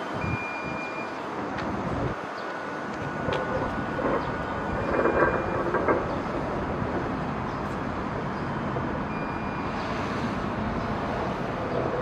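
Steady outdoor background noise with a low rumble, swelling for a couple of seconds about four seconds in, with a few brief high-pitched tones over it.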